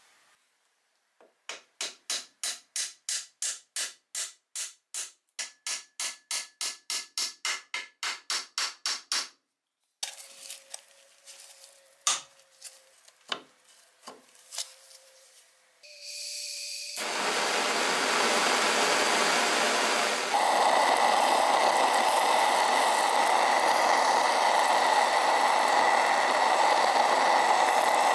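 A handheld gas blowtorch lit with a hiss and then burning with a loud, steady rush for the last third, its flame played on rusted iron. Before it come about twenty-five quick, even scrubbing strokes on the rusty metal, roughly three a second, then a few sharp clicks.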